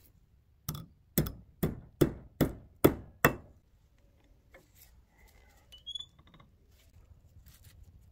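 Seven hammer blows on steel wire against a steel bench block, about two and a half a second, each ringing briefly, as a bent wire part is straightened. A light metallic clink follows a few seconds later.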